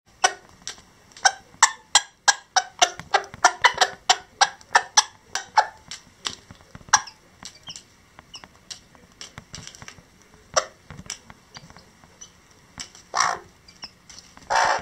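Lavender Old English Game bantam hen clucking in a quick run of short, sharp notes, about three a second, then more sparsely, with two longer, louder clucks near the end. This is a broody hen's food call to her chicks as she picks up and offers food.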